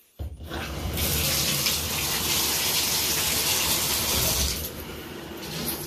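Water gushing from a bathtub spout after the shower mixing valve is turned on. About four and a half seconds in, the rush changes as the freshly repaired spout diverter is pulled to send the water up to the shower head, testing that the spout no longer leaks.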